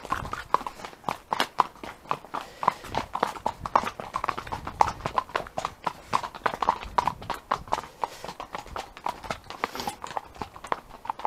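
Horse's hooves clopping in a quick, steady rhythm of several beats a second as the horse is ridden.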